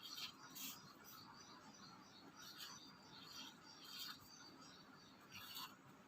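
Faint, short scratching strokes of a pen drawing switch symbols on a wiring diagram, about seven strokes at irregular intervals.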